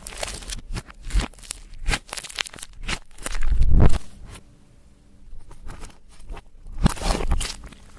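Clear slime being squished and mixed by hand, with irregular sticky crackles and pops. A louder, deeper squish comes about halfway, followed by a brief lull.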